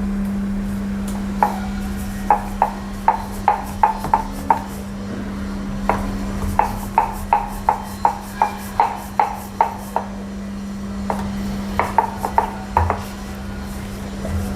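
Rolling pin and board rolling out a potato-stuffed paratha, knocking about three times a second in three runs, over a steady low hum.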